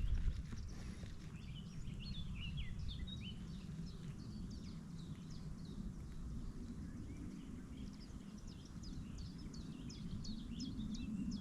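Small birds singing, strings of short, quick falling chirps in two runs, over a low steady rumble.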